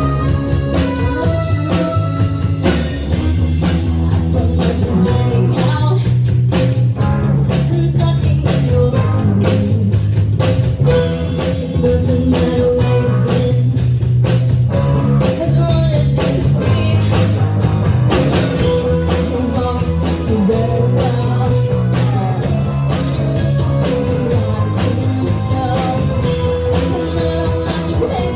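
Rock music playing: guitar and bass with a voice singing, and drums coming in about three seconds in.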